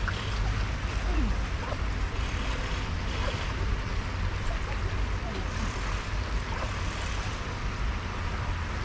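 Steady wind noise buffeting the microphone: a constant low rumble with an even hiss above it.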